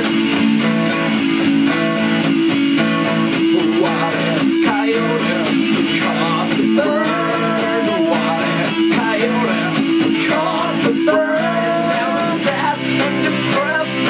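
An electric guitar and an acoustic guitar playing a song together: strummed chords under a bending lead line.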